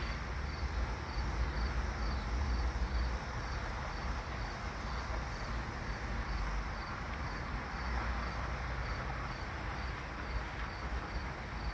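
An insect chirping steadily, a high-pitched pulse about twice a second, over a continuous low rumble.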